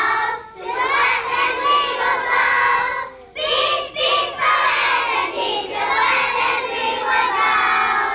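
A group of young children singing together, with short breaks about half a second in and again about three seconds in.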